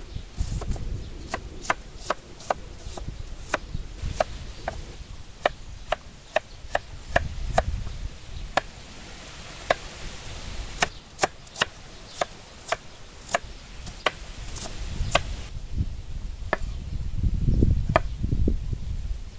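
Knife chopping on a cutting board: sharp, separate strokes, about one or two a second and irregularly spaced. A low rumble swells near the end.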